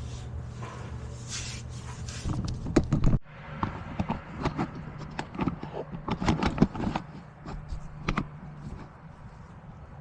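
Scattered metallic clicks and knocks of hand tools and parts being handled during car work, over a steady low hum that cuts off abruptly about three seconds in and resumes shortly after.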